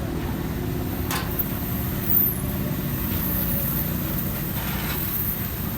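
An engine running steadily at idle, a continuous low pulsing rumble, with a single click about a second in.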